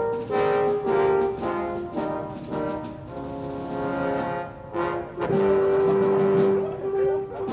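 Background orchestral music led by brass, playing a melody of short notes, then one long held note about five seconds in.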